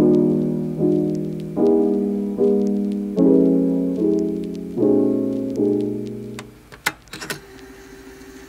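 Background piano music: chords struck about every 0.8 s, each ringing away before the next. Near the end the piano stops, leaving a few sharp clicks and a faint held tone.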